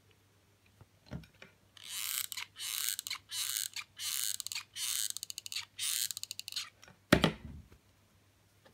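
Hot glue gun being squeezed along a fabric edge: about six short, scratchy rasps roughly a second apart. A single loud knock follows near the end as the gun is set down on the table.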